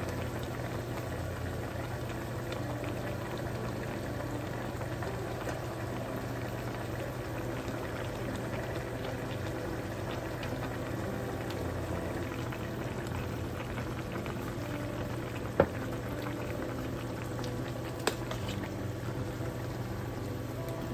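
A pot of chicken and vegetable broth boiling, a steady bubbling, with two sharp clicks a few seconds apart near the end.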